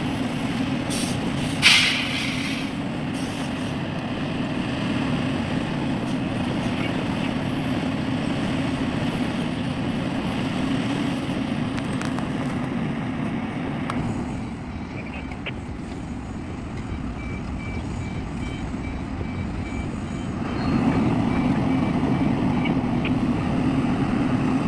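A large vehicle's engine running steadily, with a short sharp hiss of air about two seconds in; the engine drops back for a few seconds, then comes up again near the end.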